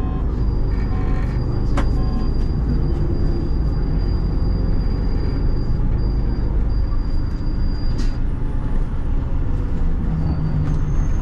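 Steady low rumble of a city bus's engine and running gear, heard from the driver's cab. A faint high steady whine runs through most of it, and there is a single click about two seconds in.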